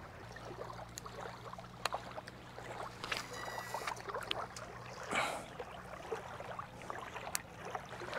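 Faint water sounds with a few sharp clicks, a brief swish about five seconds in, and a low steady hum underneath.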